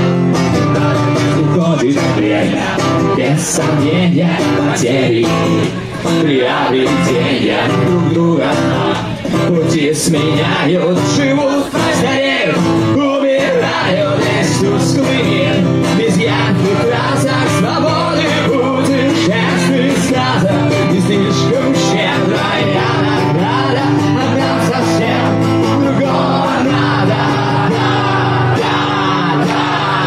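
A live rock band playing loudly, with acoustic guitar, drums and sung vocals.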